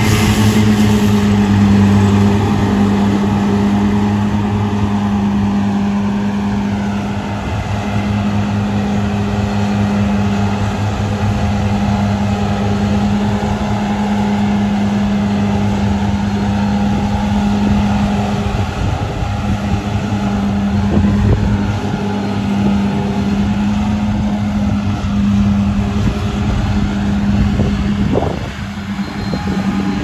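Krone BiG M self-propelled mower running at a steady engine speed while mowing grass, a constant low hum.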